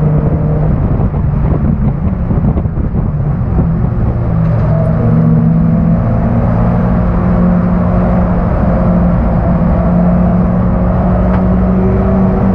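1991 Honda Accord race car's four-cylinder engine heard from inside the cabin. It runs at lower revs for the first few seconds, then climbs in pitch about four seconds in and holds steady at higher revs under throttle.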